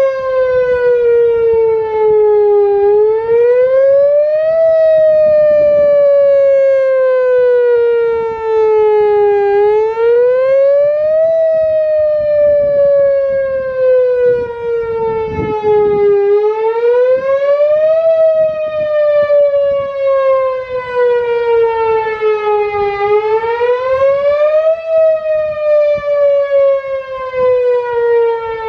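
Whelen Vortex electronic outdoor warning siren sounding its wail signal during a scheduled monthly test. It is a loud single tone that rises quickly over about two seconds, then falls slowly over about five, and repeats about four times.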